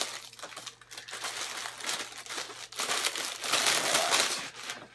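Clear plastic bag crinkling as it is worked open and a shirt is pulled out of it. The crinkling is loudest in the second half and stops near the end.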